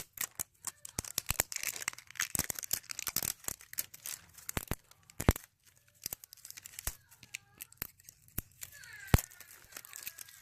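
Plastic wrapping on a toy being torn and crinkled open by hand: a dense, irregular run of sharp crackles and rips. A child's voice is faintly heard in the background.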